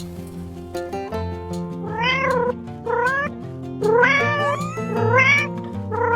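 A cat meowing about five times, short calls that rise in pitch, starting about two seconds in, over soft background music.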